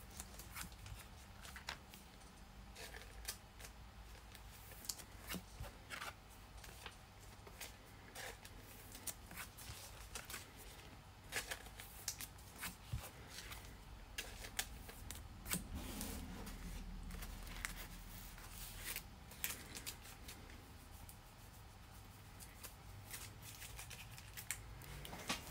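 Irregular light clicks and rustles of trading cards being handled and sorted.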